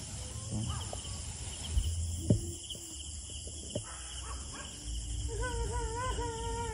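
A long wavering wail, heard as crying, starts about five seconds in and is held for a couple of seconds. Crickets or other insects chirr steadily behind it.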